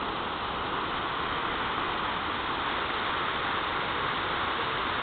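Steady rushing noise of heavy surf from large hurricane-driven waves breaking against a breakwater.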